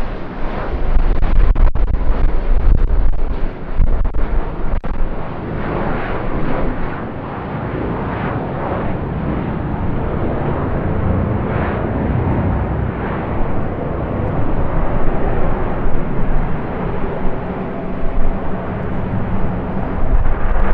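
Loud aircraft engine noise from an airplane close by, a dense steady rush that eases a little midway and builds again near the end.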